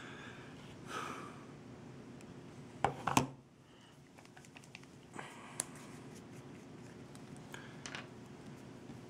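Small clicks and taps from handling a metal vape tank atomizer on a box mod, with a louder pair of knocks about three seconds in, over a faint steady hum.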